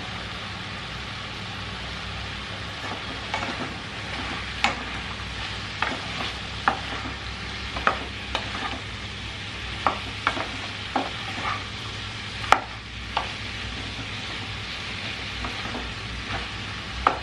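Wooden spatula stirring chicken, potatoes and green beans in a nonstick frying pan, knocking and scraping against the pan in irregular clicks that begin about three seconds in, with one louder knock past the middle. A steady low hiss lies under the knocks.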